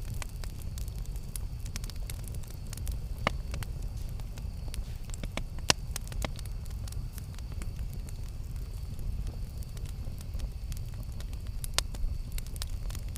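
Campfire burning: a steady low rumble of flames with scattered sharp crackles and pops, the loudest about six seconds in and again near the end.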